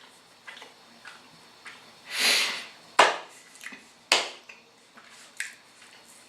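A person eating with a mouthful of food: a long breath out about two seconds in, then sharp wet mouth clicks and smacks, two of them loud.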